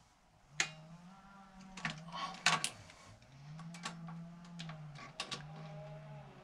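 Sharp metallic clicks and clinks of a hand wrench on cylinder head bolts as they are tightened, irregularly spaced. Under them a low steady tone comes and goes in stretches of about a second.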